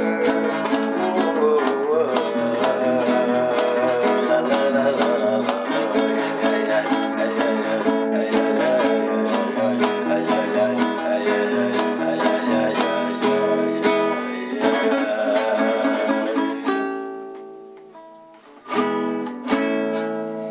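Instrumental music led by plucked guitar, picking quick runs over a bass line. It fades out, then ends with two strummed chords that ring on.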